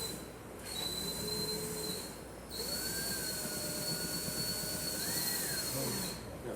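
A small electric motor whining in two runs, a short one and then a longer one, its pitch rising briefly and falling away as it stops near the end.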